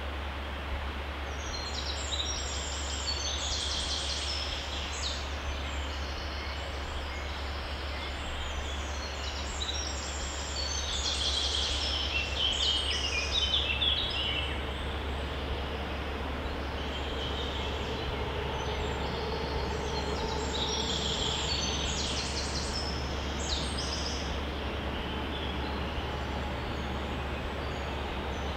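Stream flowing with a steady rush while songbirds sing in short runs of quick high notes, busiest about a third of the way in and again later.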